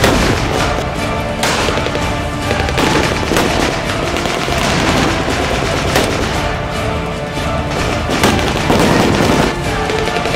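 Staged battle gunfire with blank rifle and machine-gun fire going off in rapid, irregular bursts, and pyrotechnic explosions giving several louder blasts along the way. Background music plays underneath.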